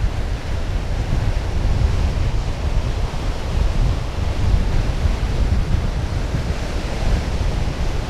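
Wind buffeting the microphone with a low, fluttering rumble over the steady wash of surf.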